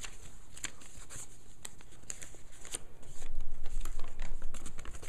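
Paper leaflets and packaging being handled: rustling with scattered small clicks and taps, getting louder and busier about three seconds in.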